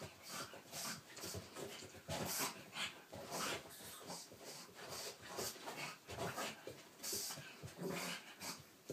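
A pug's breathing and small vocal noises in an irregular run of short, hissy huffs, about two a second, as it darts at and away from a toy it is nervous of.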